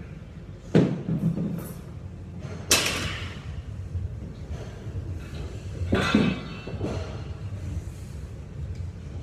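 Loaded 70 kg barbell being set down on a wooden lifting platform between reps: three heavy thuds with a metallic clank, about a second in, near three seconds and about six seconds in.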